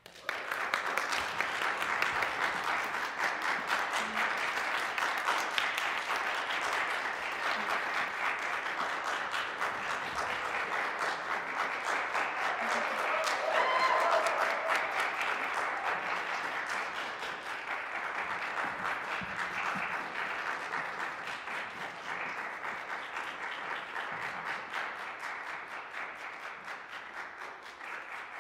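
Audience applauding at the end of a performance, breaking out suddenly from silence and easing off slightly over the second half, with a brief cheer about halfway through.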